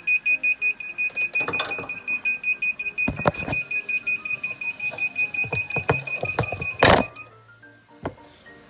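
Hot-Head heat press timer beeping rapidly in a quick run of short high beeps, several a second, signalling the end of its ten-second pressing cycle. A few knocks come over it, and a loud clunk about seven seconds in, just before the beeping stops.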